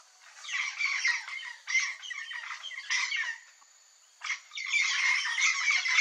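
A flock of yellow-faced parrots (Alipiopsitta xanthops) calling, many calls overlapping. They stop for about a second a little past halfway, then start again and grow louder near the end.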